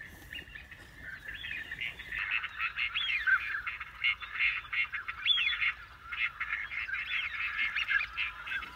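A flock of ducks calling: many high chirping and whistling calls overlapping without a break, getting busier about two seconds in.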